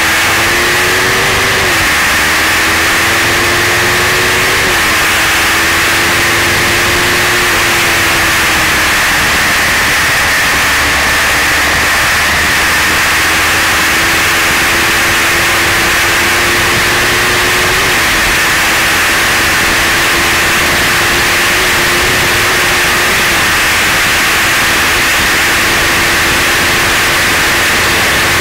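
Kawasaki Ninja ZX-12R's inline-four engine running at speed under heavy wind rush on the microphone. Its note climbs and drops sharply twice in the first five seconds, as at upshifts, then sags and rises again with smaller drops later on.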